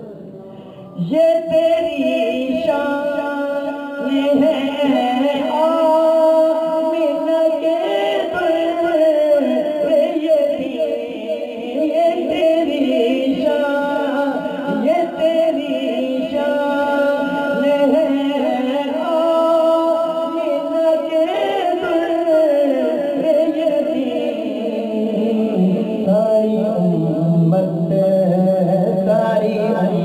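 Islamic background music: a sung, chant-like vocal piece with long held notes, coming in louder about a second in.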